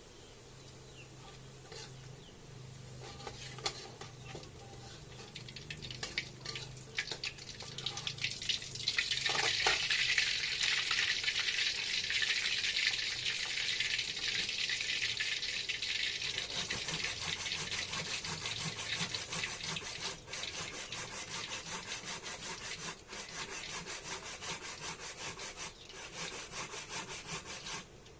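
Food sizzling in hot oil in a pan. It begins with a few light clicks of utensils, then about nine seconds in a loud sizzle sets in and carries on as a steady, rapid crackle.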